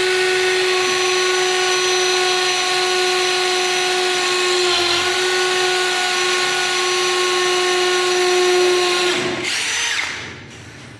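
Cordless impact drill motor running at a steady speed with a high whine, dipping briefly in pitch about five seconds in, then released and spinning down about nine and a half seconds in.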